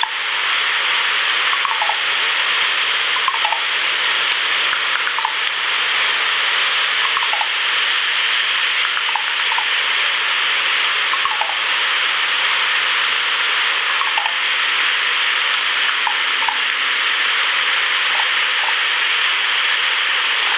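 Steady rushing noise like running water, with faint short falling notes recurring every second or two.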